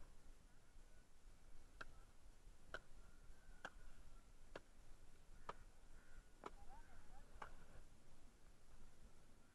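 Faint, sharp clicks at an even pace, about one a second, seven in all, starting about two seconds in over near silence.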